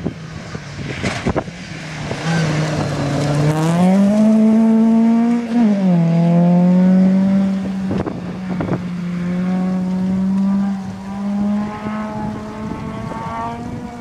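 Rally car engine at high revs on a gravel stage. Its pitch climbs for a few seconds, drops sharply about six seconds in, then holds nearly steady and creeps up near the end, with a few sharp clicks.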